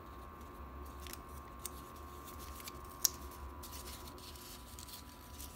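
A small rolled paper fortune slip being unrolled by hand: faint paper rustling with a few light crackles, the sharpest about three seconds in.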